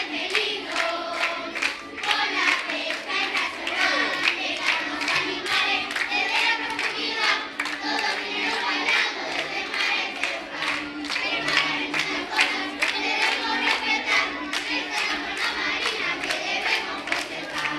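A group of children singing a song together while clapping their hands in a steady rhythm.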